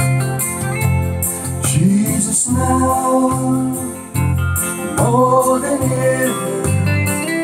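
A gospel song: a man sings two long held notes over electric guitar and a pulsing bass line.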